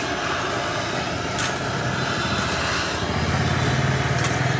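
Steady street traffic noise, with a low engine hum swelling about three seconds in, and a couple of light clinks of a steel spatula against a steel frying pan.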